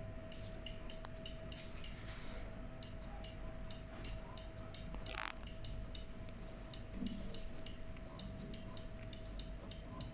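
Stepper motor stepping slowly under Mach3 G-code control: a string of sharp ticks, a few a second and unevenly spaced, over a steady tone. One louder click about five seconds in.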